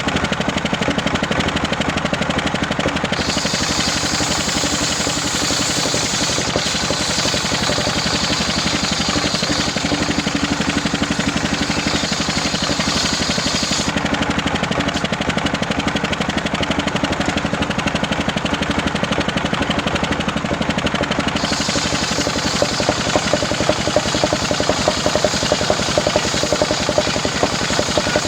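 Homemade engine-driven circular saw running steadily, its blade ripping through waru (sea hibiscus) wood for rafters. A high hiss of the cut comes in about three seconds in, drops out about halfway through, and returns for the last quarter.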